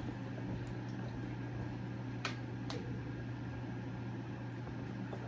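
A steady low mechanical hum, like an appliance or fan running, with two short sharp clicks about half a second apart near the middle.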